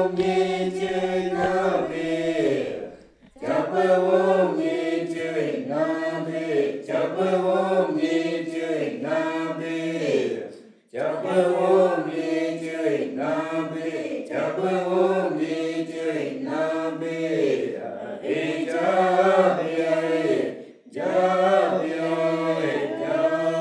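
Maxakali chant: voices singing together in a repeated, stepping melodic phrase, breaking off briefly for breath three times.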